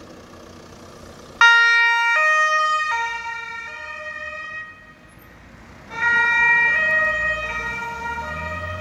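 Carabinieri patrol car's two-tone siren, switching between a high and a low note about every three quarters of a second. It starts suddenly about a second and a half in, fades out near the middle, and comes back about six seconds in. A quieter rumble comes before it.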